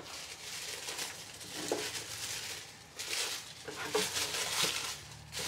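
Tissue paper rustling and crinkling as hands dig through it inside a cardboard box, in irregular surges that grow louder about three seconds in.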